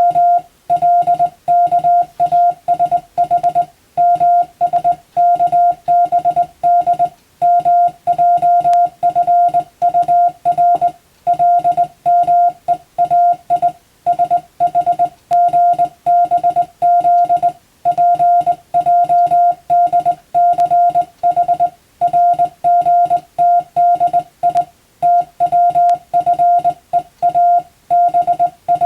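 Morse code (CW) tone, a steady mid-pitched beep keyed rapidly on and off in dots and dashes, in groups of characters with short pauses between them. It is telegraph sending practice of English-language telegram text.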